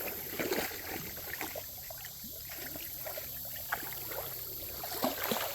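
Shallow creek water trickling, with many small scattered splashes and clicks.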